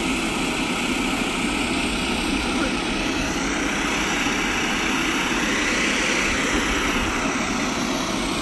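Twin-turboprop commuter plane's engines running at ground idle on the apron. A steady, loud propeller and turbine rush that swells slightly around the middle.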